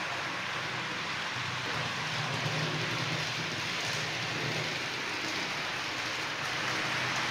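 H0-scale model freight train, an electric locomotive hauling tank wagons, rolling along the track: a steady hiss of wheels on the rails over a low hum that swells a little as the train comes nearest.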